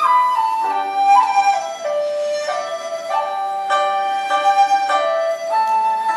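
Chinese bamboo flute playing a slow melody of held notes that steps downward, over plucked guzheng accompaniment.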